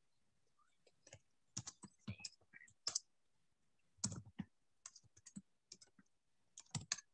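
Faint, irregular clicking at a computer, in small clusters about a second and a half in, around four seconds and again near the end.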